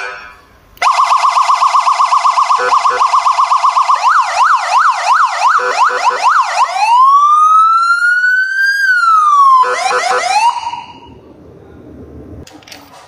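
Senken YD50-27 50-watt motorcycle siren speaker, driven by its MTH-D01A controller, cycling through its siren tones. First comes a rapid pulsing tone, then a fast yelp of quick up-and-down sweeps about two a second, then a slow wail that rises and falls once, then a few quick sweeps before it cuts off about eleven seconds in.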